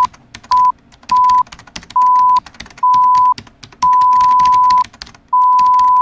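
Synthetic intro sound effects: a run of electronic beeps at one steady pitch, seven in all, each held longer than the last, with the final one sustained, over rapid clicking ticks as a loading counter climbs.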